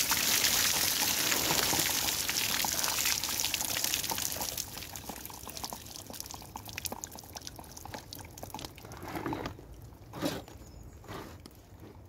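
Rainwater being tipped out of a black plastic plant-pot tray, pouring and splashing onto a wooden bench for about four seconds, then dwindling to drips. A soft knock near the end.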